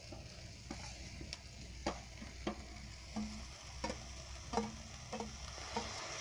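Cooked beef being stirred into frying onion masala in a metal pan: a spoon knocking against the pan about every half second over a soft sizzle.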